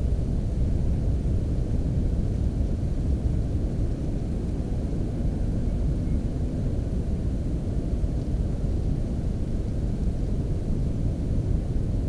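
Steady low rumble of background noise, even in loudness, with nothing distinct standing out in it.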